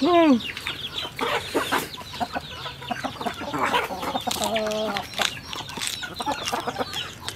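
Chickens clucking in the background, with close chewing and crunching of lettuce leaves. A man's short falling exclamation ("ah") comes at the very start and is the loudest sound.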